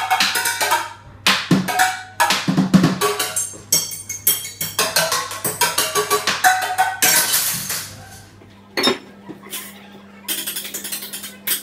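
Improvised drumming on kitchen pots, tubs and utensils: a fast, uneven run of sharp strikes with short ringing tones that thins out to a few scattered hits after about eight seconds.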